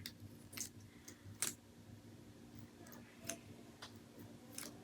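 A few faint, sharp clicks and taps, about four, as small parts of an RC crawler's chassis and metal driveshafts are handled, over a faint steady hum.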